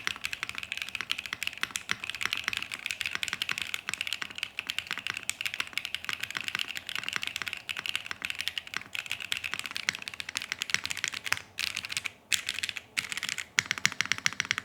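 Fast, continuous typing on a Mode Tempo mechanical keyboard with a POM plate and BSUN linear switches, a dense run of keystroke clacks, broken by a few short pauses in the last few seconds.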